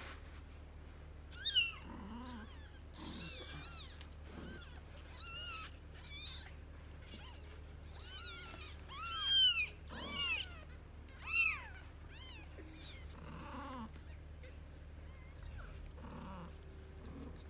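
Two-week-old Angora kittens mewing: a dozen or so short, thin, high-pitched cries that rise and fall in pitch, the loudest cluster coming a little past the middle.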